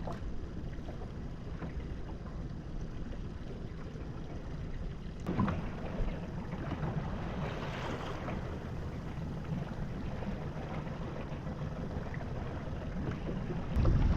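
Fishing boat's engine running steadily, with wind buffeting the microphone; a single knock about five seconds in.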